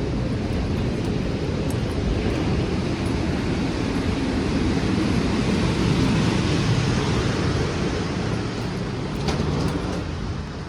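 Steady low rumble and hiss of a moving vehicle, swelling a little and then easing near the end, with a couple of faint clicks about nine seconds in.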